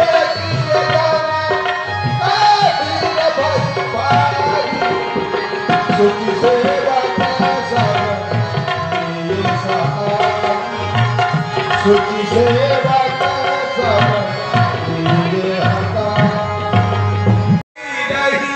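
Tabla drumming in a steady rhythm under a melody line that bends in pitch: Indian devotional music accompanying a Ramleela stage play. The music cuts out abruptly for a moment about a second before the end.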